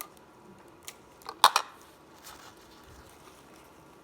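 A brief, sharp clatter of a hard object being knocked or set down, about one and a half seconds in, with a smaller knock right after it.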